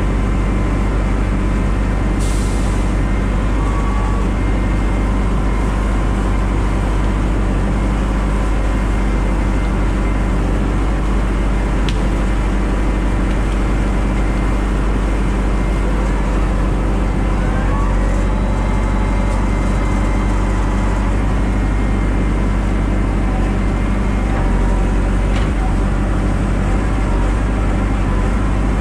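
Tractor engine running steadily as it hauls the loaded crane wagon along a forest track, with a short hiss about two seconds in.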